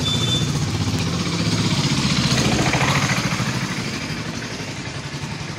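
A small motor vehicle's engine running with a steady, rapid pulse. It grows louder to a peak about halfway through, then fades as it passes by.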